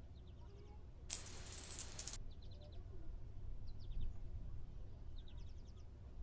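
Ambient bird chirps: short quick trills repeating every second or so. About a second in comes a louder hiss or whoosh of noise that lasts about a second and cuts off suddenly.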